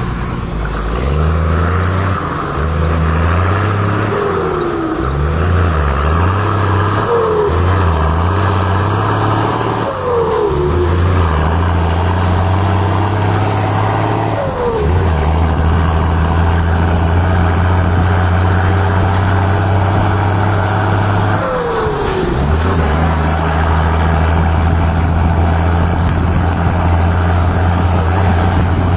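A powerful vehicle engine running with a deep steady drone. Its note shifts in steps during the first fifteen seconds, then holds steady apart from a short dip a little past twenty seconds. Brief falling tones come through every few seconds.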